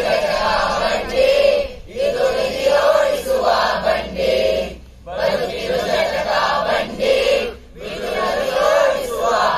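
A large group of young men and women singing a Kannada song together in unison. The singing comes in phrases broken by short pauses about every three seconds.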